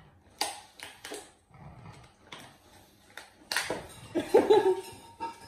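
Dogs squabbling over treats: a few short noisy sniffs or snorts, then a brief snarling outburst about three and a half seconds in.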